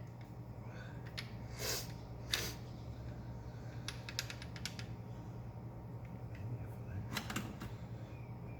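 Scattered metallic clicks and clinks of hand tools working the bolts on a Jeep TJ Rubicon rear differential, with a small run of quick clicks about four seconds in and a few duller knocks. A steady low hum runs underneath.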